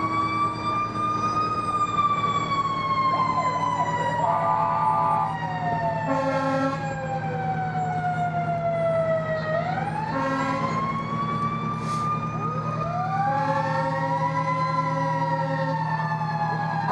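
Fire truck siren wailing, its pitch rising and then falling slowly, twice, with several short horn blasts between and an engine's low steady rumble underneath.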